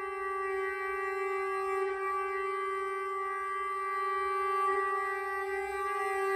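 Hardanger fiddle (hardingfele) tuned in klokkestille, holding one long steady bowed note with its overtones ringing.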